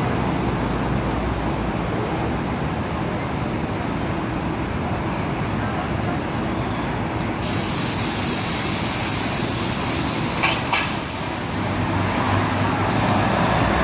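Busy city intersection traffic: a steady wash of engines and tyres from passing cars, trucks and buses. About halfway through a loud high hiss sets in suddenly and carries on for several seconds, and two short sharp squeaks come a little later.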